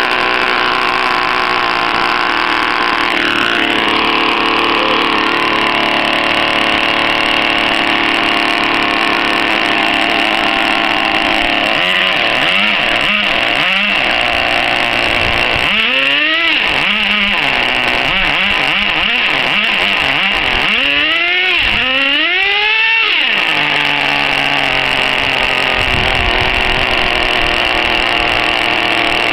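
Exceed Infinity nitro RC truck's small two-stroke glow engine running steadily as it warms up, with a high, buzzy idle. The throttle is blipped in short revs about halfway through, each rising and falling in pitch, then in a longer run of revs about two-thirds of the way in before it settles back to idle.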